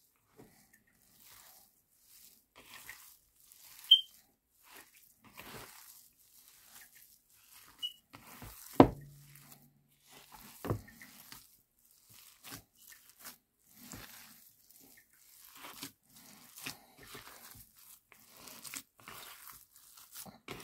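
A hand squeezing and mixing shredded chicken, chopped coriander and mashed potato in a plastic bowl: soft, scattered squishing and crackly rustling. A short high chirp comes about four seconds in, and a single knock about nine seconds in.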